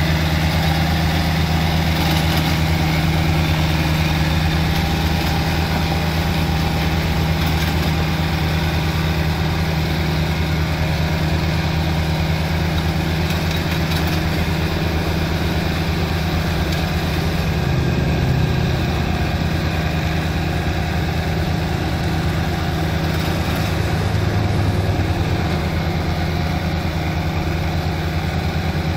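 Farm tractor's diesel engine running steadily under load while it pulls a rotary disc ditcher cutting a channel through wet paddy mud.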